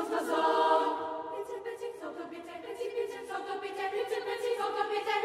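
Girls' choir singing a cappella: a full chord comes in strongly at the start, then held chords that move to new pitches every second or so.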